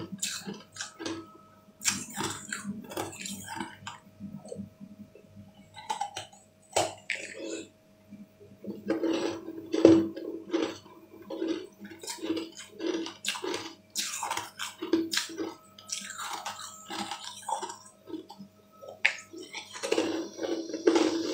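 Close-up eating sounds of someone biting and chewing a green frozen ice ball: irregular wet crunches, clicks and mouth smacks, with clusters of quick chewing sounds.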